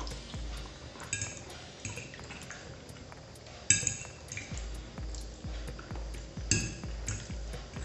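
Metal fork scraping and clinking against a ceramic plate of sauced pasta, with three sharp ringing clinks: about a second in, near the middle and near the end.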